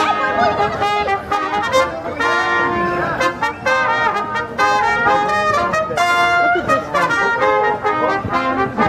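Brass music for a royal procession: a stately tune of held notes and chords played together, led by trumpets.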